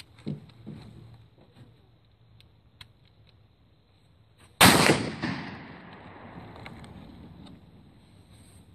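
A single 12-gauge slug fired from a Saiga-12 semi-automatic shotgun about four and a half seconds in: a sharp report followed by an echo that dies away over a couple of seconds. A few light knocks come before the shot.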